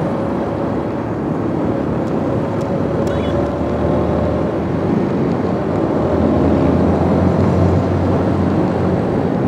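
Motorcycle riding at speed on an open road: steady engine, road and wind noise on the microphone, getting slightly louder about two-thirds of the way through.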